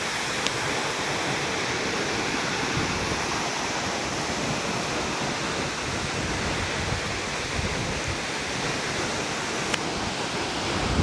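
Waterfall rushing, a steady even roar of falling water, with two faint ticks, one about half a second in and one near the end.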